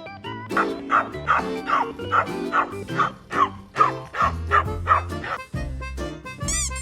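A small dog barking in a quick series of high yaps, about two or three a second, over background music. Near the end comes a short high tone that rises and falls.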